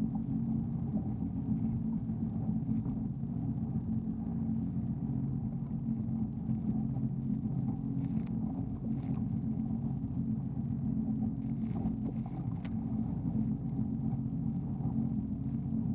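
Jet ski engine running at a steady speed, a low hum that holds even throughout, with a few faint ticks around the middle.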